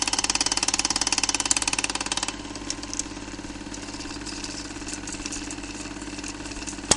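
An engine idling with a rapid, even pulse. A little over two seconds in it drops to a quieter, duller sound, and it cuts off at the end.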